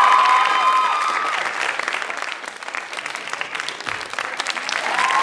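A crowd applauding: dense clapping throughout, with high cheering voices over it that fade out after about a second.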